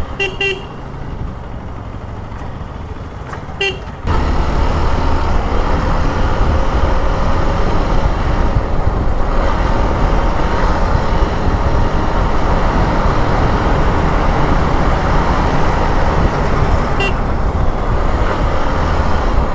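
Hero Xpulse 200 single-cylinder motorcycle ridden through traffic: engine running, with the rush of wind and road noise jumping much louder about four seconds in as the bike picks up speed. Short vehicle horn beeps sound near the start, a few seconds in, and near the end.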